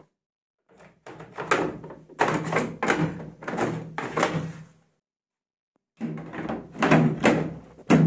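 Washing machine's plastic detergent drawer being worked in its housing, then the top cover slid back into place: two spells of scraping plastic and knocks, the second ending with the loudest knock near the end.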